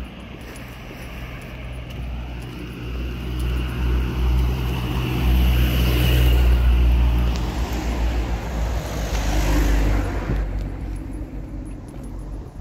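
A motor vehicle passing close by: its engine and tyre noise swell to a peak about halfway through, then fade away.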